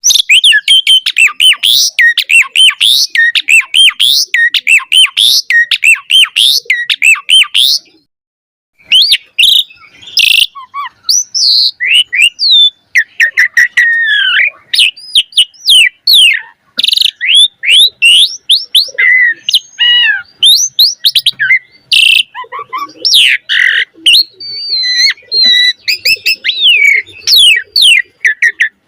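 Javan pied starling (jalak suren) singing at full tilt: a fast string of rising chirps, then a brief break after about eight seconds. The song resumes as a varied run of whistles, chatter and harsh squawky notes, packed with mimicked fill-in phrases.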